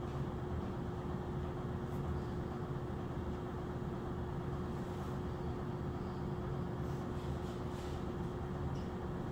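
Steady mechanical background noise: a low rumble with a constant mid-pitched hum, unchanging throughout.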